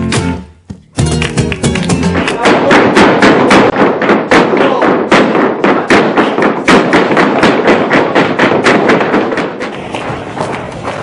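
Flamenco music with guitar, cutting out for a moment about half a second in, then resuming. From about two and a half seconds in, fast percussive strikes ride over it, typical of flamenco footwork (zapateado) stamping in rhythm.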